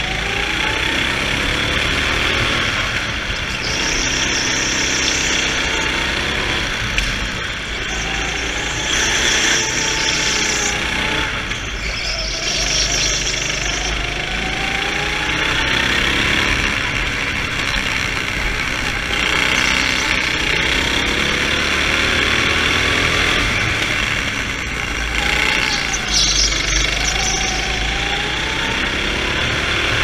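Go-kart engine at full throttle, its pitch climbing on the straights and dropping back for the corners, over and over. The tyres squeal briefly about four times as the kart slides through turns.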